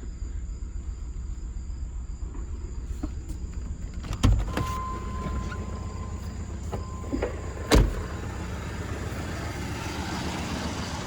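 Chevy S10 engine running with a steady low pulse; it still has a cylinder 2 misfire that new spark plugs have not cured. Two sharp thumps come about 4 and 8 seconds in, with a steady high tone sounding between them.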